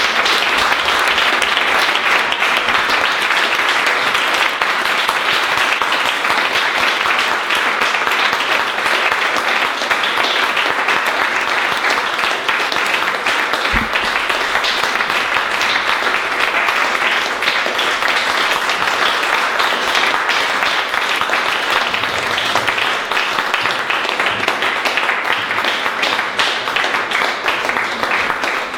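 Small audience applauding, a steady patter of many hands clapping that eases a little near the end.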